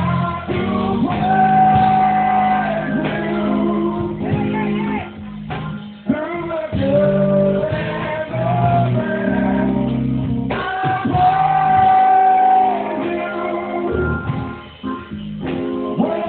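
Church music: singing with long held notes over instrumental accompaniment with steady bass notes, echoing in the hall.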